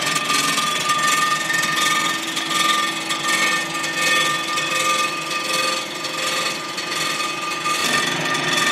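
Blockmaster 85B surfacing machine decking an AMC 258 inline-six cast-iron block: its spinning cutter head takes a very light two-thousandths pass across the deck. The machine runs steadily with a constant whine over a rough hiss of the cut.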